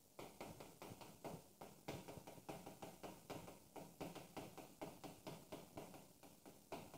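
Chalk writing on a blackboard: a faint, quick, irregular run of taps and short scrapes, about five a second.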